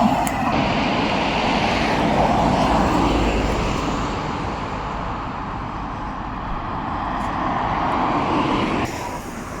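Vehicle traffic noise: a continuous rush of passing vehicles that swells and fades, dropping suddenly in level near the end.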